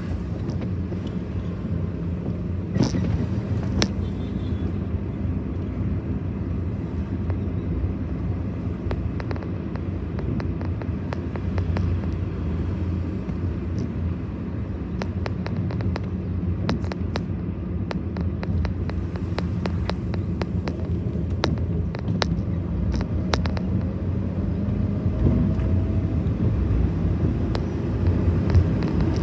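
Steady low rumble of a car driving along a highway, heard from inside the cabin, with scattered light clicks and rattles.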